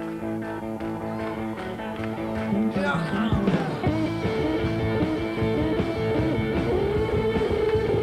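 Glam rock band music: electric guitars over bass guitar and drums. It gets fuller about three seconds in, and a long held note bends and wavers over the band.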